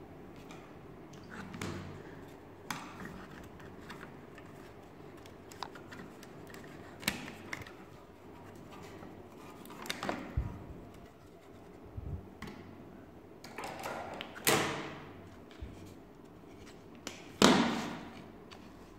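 Laser-cut plywood model-kit parts being handled and fitted: scattered light clicks, taps and knocks of thin wooden pieces against each other, the table and the paper instruction sheet. The two loudest, longer handling noises come about two-thirds of the way through and near the end.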